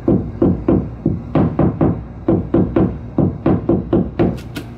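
A hammer tapping lightly on a drywall wall, about three to four knocks a second, moving along the wall to find a stud by how the knocks sound.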